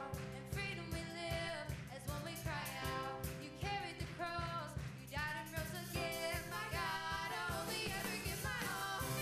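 Pop-rock song with a steady drum beat and sung vocals.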